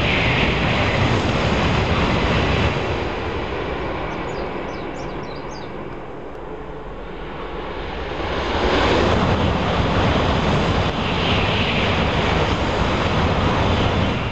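Shinkansen bullet trains passing at speed: the rushing noise of an N700-series train going by fades away over the first few seconds. A second Shinkansen then approaches and rushes past, loud again from about eight seconds in.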